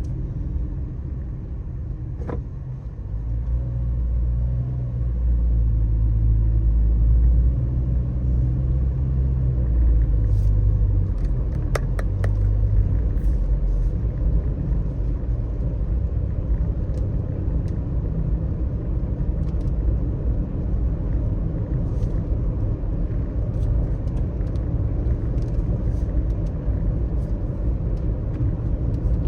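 Car driving on a wet road in the rain: a steady low road and engine rumble that swells louder for several seconds early on and then settles, with faint scattered ticks over it.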